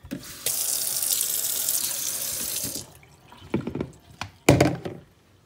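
Kitchen tap running into a sink for about two seconds, then stopping, followed by a few clinks of dishes and one louder knock.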